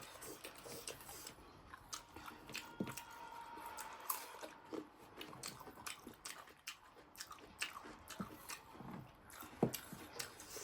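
A person chewing and biting food close to the microphone: wet mouth clicks and small crunches at an irregular pace.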